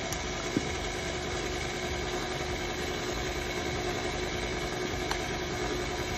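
KitchenAid Artisan Design stand mixer running steadily, its flat beater turning through thick cake batter as flour is worked in. There is a brief knock about half a second in.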